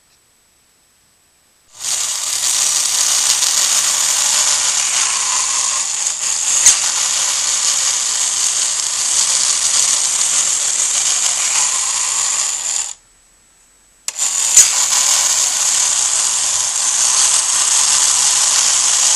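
Clockwork spring motor of a 1950s Japanese wind-up toy dog in a basket, whirring steadily, with a couple of sharp clicks. It cuts off abruptly about thirteen seconds in and starts up again a second later.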